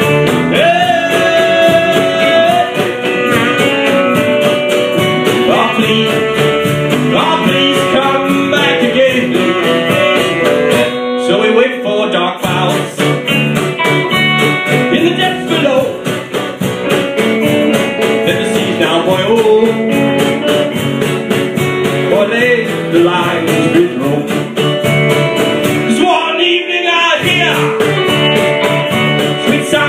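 Live folk band playing a sea shanty: a sung lead vocal over strummed acoustic guitar, electric bass, electric guitar, cajon and saxophone. The bass drops out briefly twice.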